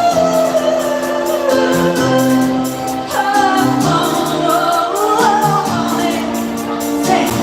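Live dance-pop music played over a stage sound system, a woman singing over a backing track of steady held chords.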